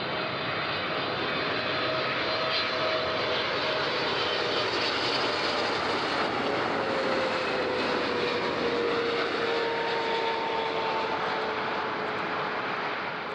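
Twin GE90 turbofans of a Boeing 777-300ER on final approach with the gear down, passing by: steady jet engine noise with faint whining tones that slide slightly lower in pitch about halfway through, fading near the end.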